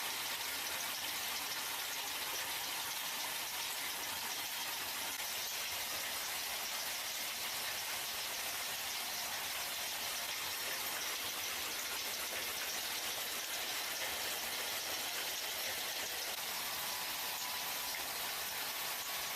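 A steady, even hiss like rain or rushing spray, with no rhythm or distinct knocks.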